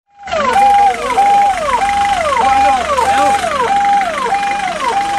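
Ambulance siren sounding a fast repeating wail: each cycle holds a steady note briefly, then drops sharply in pitch, about three cycles every two seconds.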